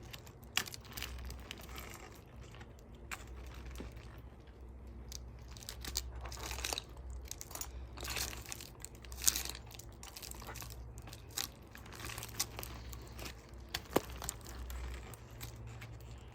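Tree-climbing spurs' gaffs biting into and scraping bark as a climber steps down a tree trunk: irregular crunches and scrapes with a few sharp clicks, over a low rumble.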